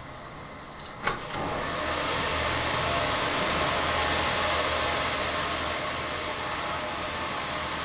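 Two clicks as the door opens, then the steady, very noisy rush of cooling fans from high-performance computing cluster server racks floods in, all the machines working flat out.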